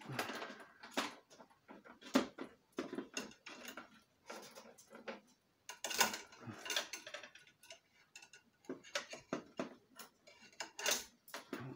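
Irregular clicks and light metallic taps of hand-held metal parts and tools being handled and fitted during reassembly of a high-pressure air compressor.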